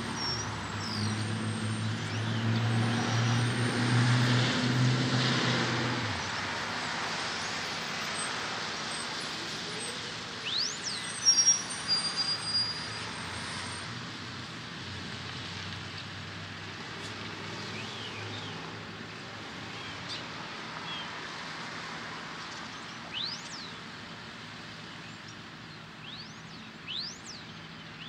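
Road traffic noise. A large engine is loudest for the first six seconds, then drops away, leaving a steady traffic hiss with a few knocks and brief high squeaks.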